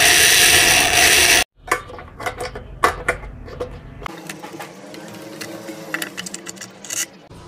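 Corded electric drill running at full speed on a screw in a scooter's plastic storage tray, a steady high whine that cuts off suddenly about a second and a half in. Then scattered clicks and knocks of plastic and rubber covers being handled and set in place.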